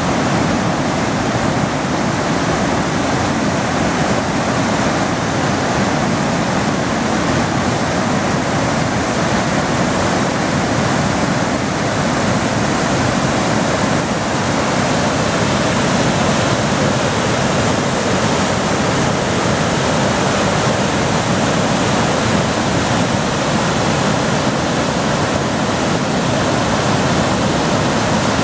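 Large waterfall in high flow after heavy rain, a loud, steady rush of falling water pouring into its plunge pool.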